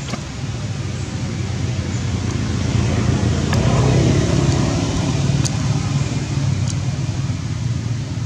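A motor vehicle passing by, a low engine rumble that swells to its loudest about four seconds in and then eases off.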